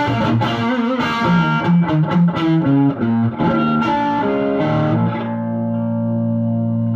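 Stock Fender Telecaster played through a TopHat Super Deluxe tube combo with EL34 power tubes and two Celestion Greenback 10-inch speakers: a quick run of single notes and double-stops, then a chord struck about five seconds in and left ringing.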